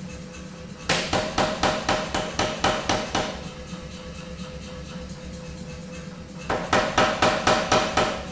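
Power hammer striking a red-hot damascus billet of 1075 and 15N20 steel in rapid, even blows, about four to five a second, in two runs: one starting about a second in and lasting a couple of seconds, another starting near the end. A steady machine hum runs underneath between the runs.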